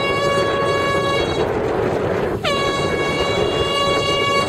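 Two long blasts of an air horn from the race committee boat, about a second and a half and two seconds long, a second or so apart, over steady wind and water noise. Two sound signals just after a start, the signal for a general recall of the fleet.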